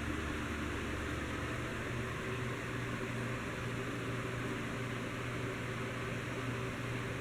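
Heritage Empire Deluxe ceiling fan running steadily: a low motor hum under an even rush of air.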